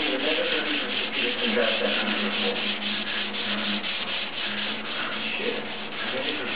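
Sandpaper being rubbed by hand back and forth over wet, soapy tooling gel coat on a fiberglass boat mold, in quick, even strokes.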